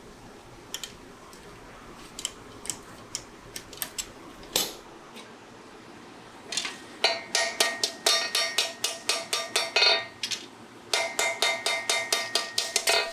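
Hand hammer striking a red-hot steel knife blade on an anvil in rapid blows, about five a second, each with a metallic ring. There are two runs of blows with a short pause between them, after a few scattered clanks of metal being handled.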